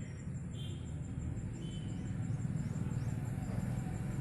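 Low, steady outdoor rumble with a few faint, brief high chirps of small birds in the first few seconds.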